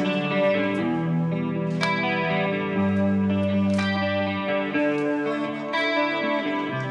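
Live rock band playing an instrumental passage, with electric guitar to the fore over held bass notes.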